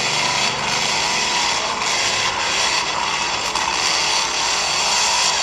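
RC 4x4 crawler's drivetrain, its electric motor and gears whirring steadily while it crawls, with a faint pitch that wavers up and down.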